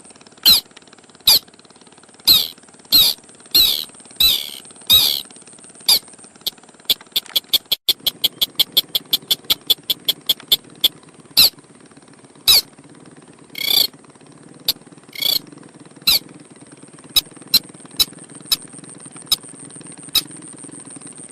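Crake (burung sintar) call used as a bird lure: loud, sharp single call notes at irregular spacing, with a quick run of rapid clicking notes from about six seconds in that lasts some four seconds. A steady high-pitched whine runs underneath, and a low hum comes in about halfway.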